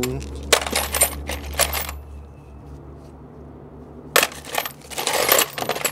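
Metal sockets from a socket set clinking and rattling against each other as they are sorted through by hand, in two bursts: one about half a second in, the other from about four seconds in.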